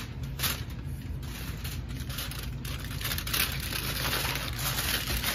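Sheet of aluminium foil crinkling and rustling in gloved hands as it is folded around a section of bleach-painted hair, over a steady low hum.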